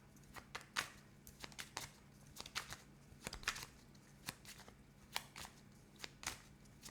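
Tarot cards being handled and shuffled: a run of quick, irregular snaps and taps, a few each second.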